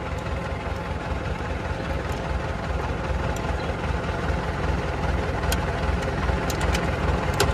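Tractor diesel engine idling steadily with a low pulsing rumble, and a few light metal clinks in the second half as the mower's PTO shaft yoke is fitted and pinned onto the tractor's PTO.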